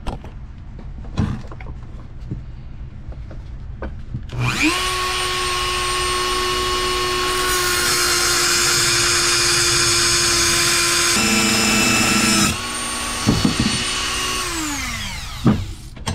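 Handheld rotary tool with a thin cut-off wheel, starting with a rising whine about four seconds in, then cutting through a steel bolt with a loud grinding noise for about five seconds. The wheel then runs free and winds down, its whine falling, near the end.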